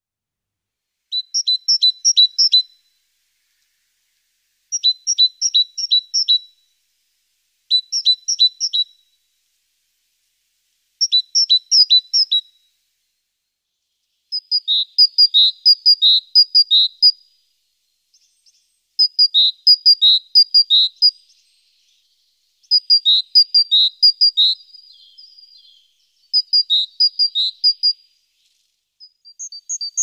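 Great tit singing its repeated two-note "teacher-teacher" song: bursts of four to six quick paired notes with short pauses between them. About halfway through it switches to a different, slightly lower-pitched version of the phrase.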